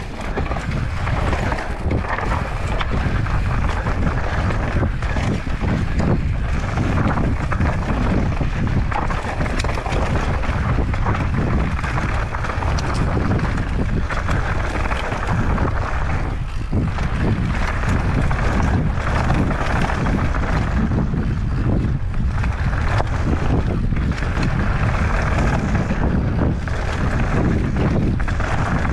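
Mountain bike descending a rough, rocky trail: continuous wind buffeting on the microphone over the rush of tyres, with frequent small knocks and rattles from the bike.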